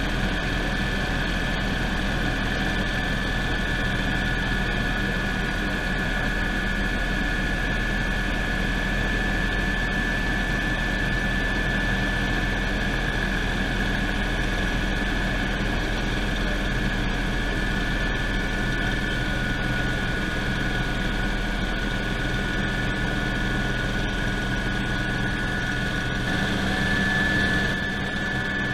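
Eurocopter EC120 Colibri helicopter in cruise, heard from inside the cabin: its turbine engine and rotors make a steady drone with a high, even whine on top.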